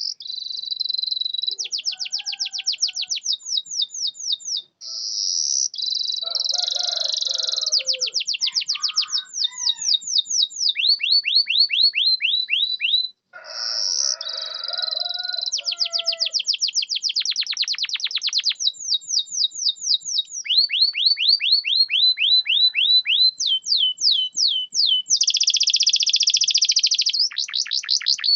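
Domestic canary singing a long, continuous song. It moves through rolls of rapid, repeated falling notes, about eight a second, and a few buzzy trills, with only brief breaks between phrases.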